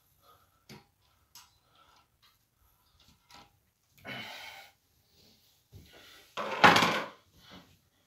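Handling noises as a man climbs down a folding step ladder: scattered light clicks and knocks, a rustling scrape about four seconds in, and a louder, longer scrape about six and a half seconds in.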